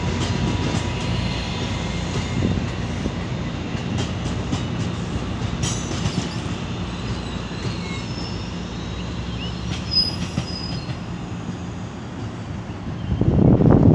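Double-deck Bombardier commuter coaches of an exo passenger train rolling past, with a steady rumble of wheels on rail and thin, high wheel squeals now and then. A louder low rumble sets in near the end.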